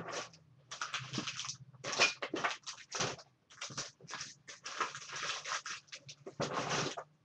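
Paper rustling and crinkling in irregular bursts as a handmade book of painted paper folders is handled.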